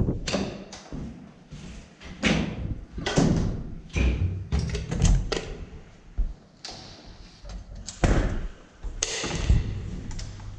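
A heavy steel door being handled: its lever handle pressed, the door pushed open and swung, giving a string of irregular thumps and clunks.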